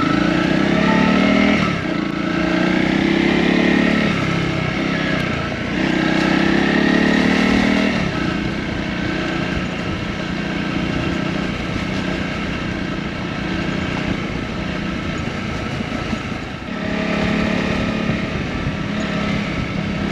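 Honda CRF250-class single-cylinder dirt bike engine pulling away and accelerating. The revs climb and drop back at each upshift three times in the first eight seconds, then settle into rougher, steadier running, with one more climb near the end.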